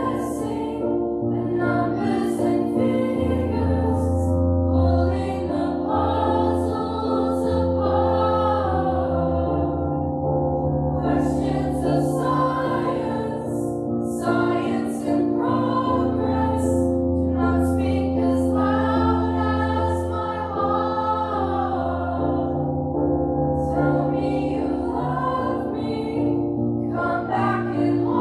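School choir singing a song with long held notes, over a steady low instrumental accompaniment.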